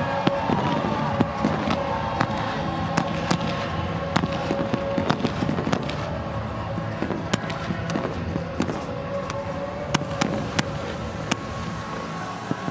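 Fireworks going off in sharp, irregular bangs, sometimes several in a second, over a steady background din and a held musical tone.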